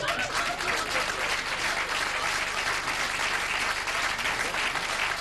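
Theatre audience applauding: many hands clapping at once in a dense, steady patter.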